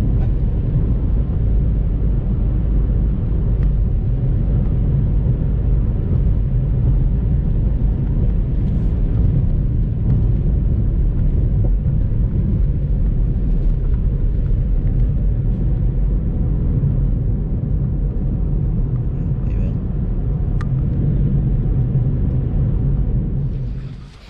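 Steady low rumble of a car on the road, cutting off abruptly near the end.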